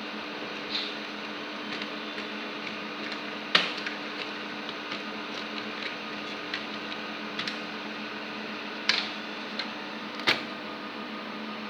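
Small metal and plastic clicks and knocks of server parts being handled during disassembly, scattered and irregular. The loudest comes about three and a half seconds in, and two more sharp ones come near the end. Underneath runs a steady mechanical hum.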